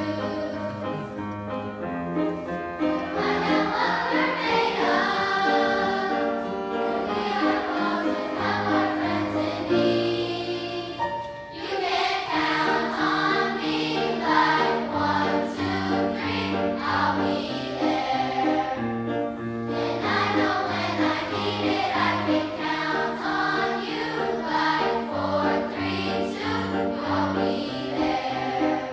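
Children's choir of fifth-graders singing a song with grand piano accompaniment, with a brief break between phrases about eleven seconds in.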